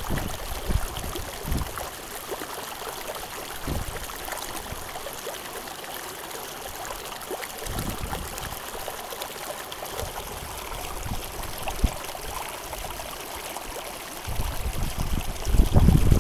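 A fast mountain stream rushing and trickling steadily. Short low thuds come and go, and a louder low rumble builds over the last couple of seconds.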